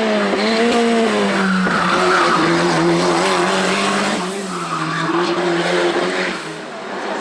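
Hill-climb race car engine running hard at high revs, its pitch dropping sharply a few times and climbing back.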